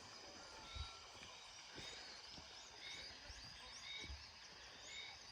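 Quiet rural outdoor ambience with a bird calling in short, repeated chirps on a higher and a lower pitch, about one to two a second, and a few soft low thumps.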